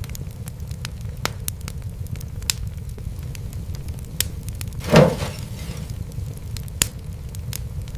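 Wood fire crackling in a fireplace: a steady low rumble of flames with scattered sharp pops and snaps, and one louder, longer pop about five seconds in.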